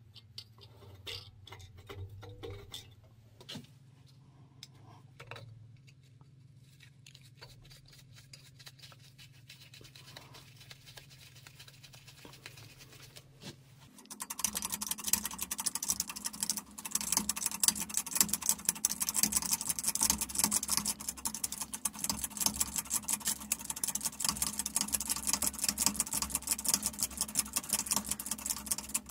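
Light clinks of steel washers being handled for the first half. About halfway a power tool starts up with a loud, rapid rattle of clicks and runs steadily, driving a nut down a threaded rod to compress a coil spring.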